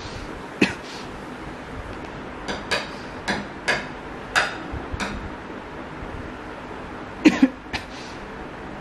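An eggshell being tapped and cracked against a plate or glass tabletop, giving a series of short sharp clicks and taps with a louder double knock about seven seconds in.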